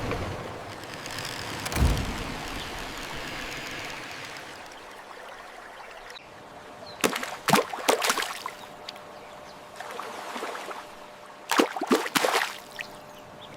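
Water trickling steadily, with a dull thud about two seconds in and two bursts of splashing, around seven and twelve seconds in, as toys move through water.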